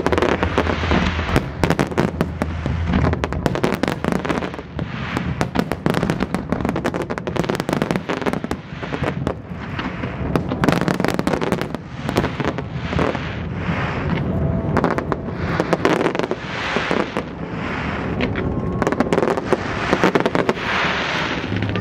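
Fireworks display: a dense, continuous barrage of bangs, with swells of crackling every few seconds.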